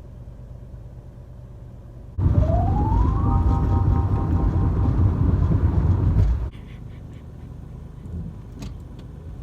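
Car engine and road rumble heard inside the car: a low steady hum, then about two seconds in a much louder rumble with a whine that rises in pitch and levels off, cutting off suddenly about four seconds later.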